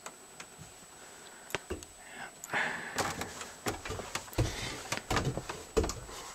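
Footsteps climbing steep wooden attic stairs. Scattered knocks and rustles come first, then heavy thuds on the treads roughly every two-thirds of a second from about four seconds in.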